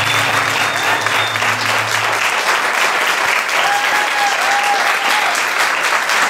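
Audience applauding at the end of a song, dense and steady. A low held instrument note dies away under the clapping about two seconds in.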